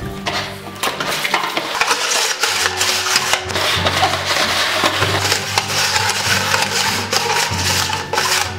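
Plastic cups knocking and scraping on a wooden slatted table as they are shuffled in a cup-and-ball trick, a dense continuous clatter over background music.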